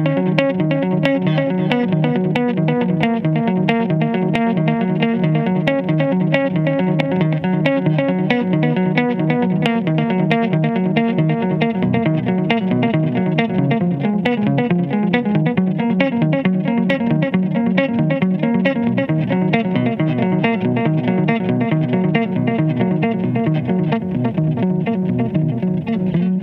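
Stratocaster-style electric guitar playing an instrumental piece, a fast, unbroken stream of picked notes.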